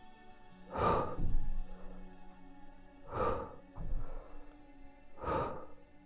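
A man exhaling hard three times, about every two seconds, in rhythm with kettlebell half squats, over background music.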